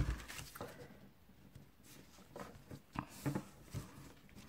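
Sheets of blue cardstock being laid down and shifted by hand on a cutting mat: a soft thump right at the start, then light, scattered paper rustles and taps.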